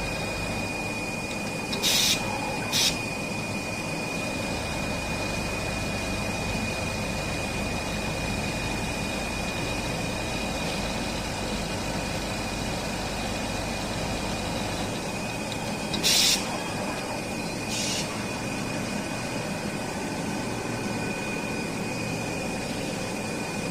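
Automatic pattern-former sewing machine running with a steady hum and a thin high whine. Four short, loud hisses break in: two about two seconds in and two around sixteen to eighteen seconds.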